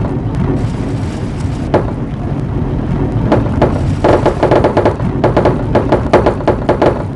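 Marbles rolling along a marble run track with a continuous low rumble. Scattered clicks turn into a rapid run of clacks and ticks from about three seconds in.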